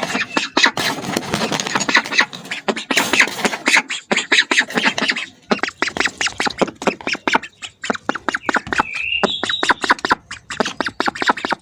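Hungry ducks feeding noisily: a rapid, irregular run of clicks and smacks from their bills, with one short rising squeaky call late on.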